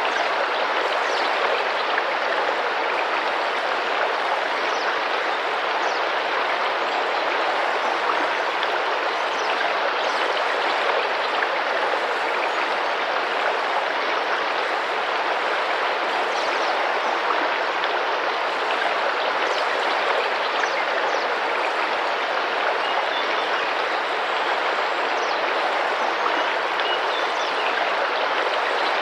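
Tropical rainforest river flowing: a steady, even rush of running water.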